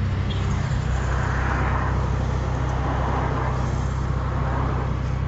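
Car engine hum and road noise heard from inside the moving car's cabin, with a wash of traffic noise swelling about a second in and easing off near the end.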